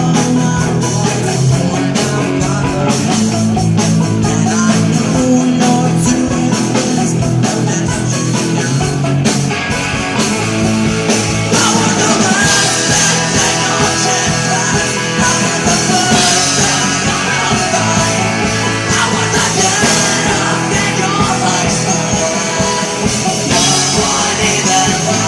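A punk rock band playing live, with electric guitars, drums and singing.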